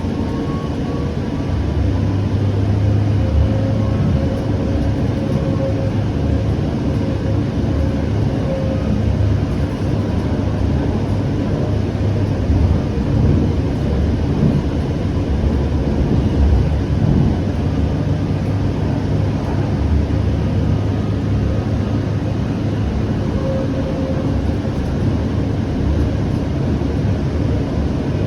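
Siemens S700 light rail vehicle running between stops, heard from inside the car: a steady low rumble of wheels on rail with a faint whine over it.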